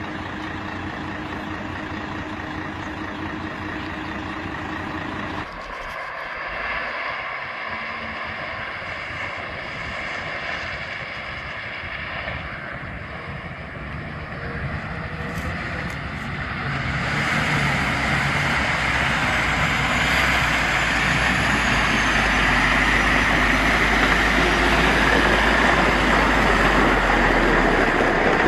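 Heavy construction machinery running with a steady engine sound. It changes abruptly about five seconds in and grows louder and harsher from a little past halfway.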